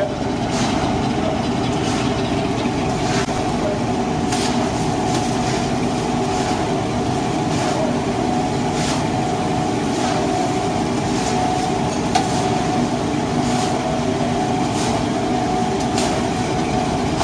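A long metal ladle scraping and knocking now and then against a large steel pan as rice is stirred and toasted in butter and oil, over a steady droning hum.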